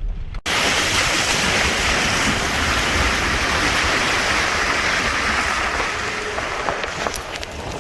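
A steady, loud rushing noise with no distinct tones. It starts abruptly about half a second in, cutting off a low rumble, and eases slightly near the end.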